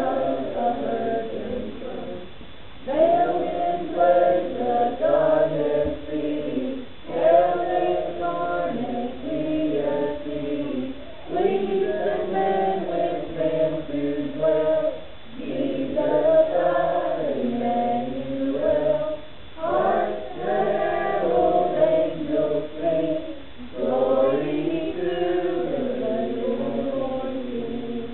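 A choir of children and teenagers singing together, in phrases of about four seconds with short breaks between them.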